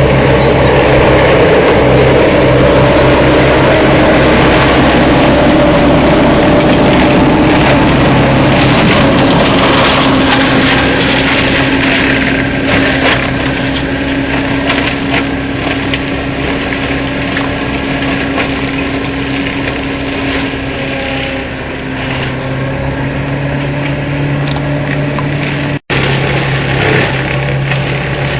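Seppi MiniForst hydraulic mulcher on an ASV RC100 tracked skid steer, working and shredding wood, over the skid steer's diesel engine running under load. A loud, steady machine noise with a steady whine that drops slightly in pitch about ten seconds in; it cuts out for an instant near the end.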